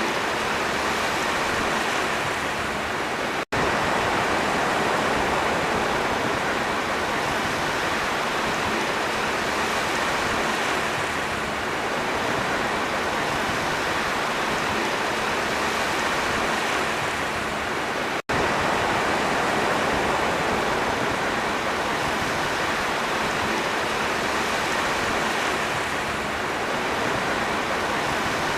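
Sea waves making a steady, even rush with no distinct separate breakers. The sound cuts out for an instant twice, about three seconds in and again about eighteen seconds in.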